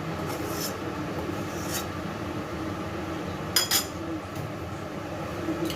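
Diced potatoes frying in a pan while a metal spatula stirs them, clinking sharply against the pan a few times, loudest about two-thirds of the way through.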